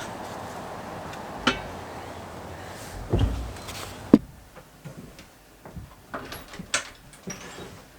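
A door thumping and clicking shut about four seconds in, after which the steady background rush drops away; a few light knocks and handling clicks follow.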